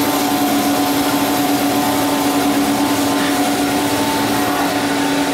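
Cosen CNC-430 bandsaw's carbide-tipped blade cutting through an 8-inch round bar of 304 stainless steel. The saw gives a steady hum with a constant low tone over an even hiss.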